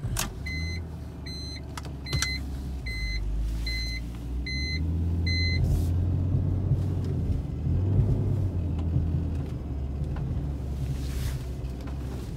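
BMW E46 engine starting in the freezing cold and idling with a low rumble. A dashboard warning chime beeps about eight times at an even pace over the first five seconds.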